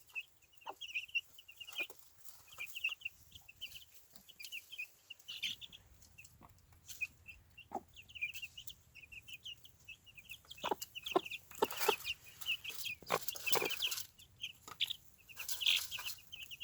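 A brood of Easter Egger chicks peeping continuously in short, high, rapid peeps, with scattered short sharp sounds among them that are busiest in the second half.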